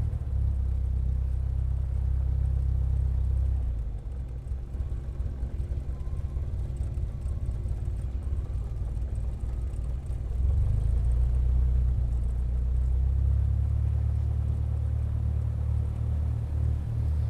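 Propeller aircraft engine running, a low drone that eases off about four seconds in and swells up again around ten seconds.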